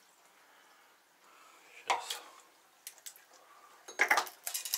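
Light clinks and knocks of hard objects being handled: a couple about two seconds in, a few scattered ones after, and a quick cluster near the end, over a faint hiss.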